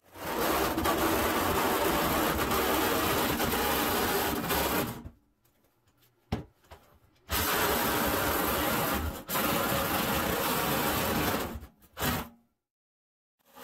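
Ryobi 18V One+ brushed cordless reciprocating saw with a metal-cutting blade sawing through a metal bathtub: a steady, gritty running sound in several runs of a few seconds each. Each run breaks off suddenly into silence, around the middle and again near the end.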